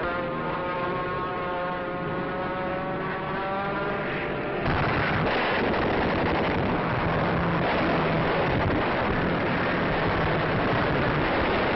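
Aircraft engines droning with a steady pitch on a newsreel sound-effects track; about five seconds in it gives way suddenly to a louder, rougher roar that runs on.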